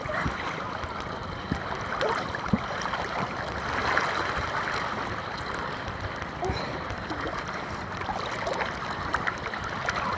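Fast-flowing water of a small river rapid gurgling and splashing right at the surface, with many small splashes and droplet ticks; a little louder about four seconds in.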